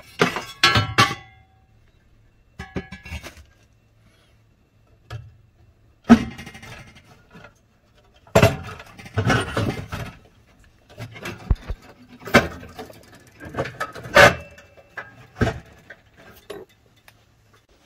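Irregular metal clanks, scrapes and rattles, some briefly ringing, as the sheet-metal back plate and burner parts of a gas water heater are worked loose and pulled out, with short quiet pauses between bursts.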